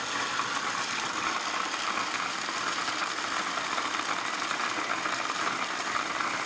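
Electric hand blender running steadily in its chopper attachment, its blades chopping a thick, dense mixture for sugar-free energy bars.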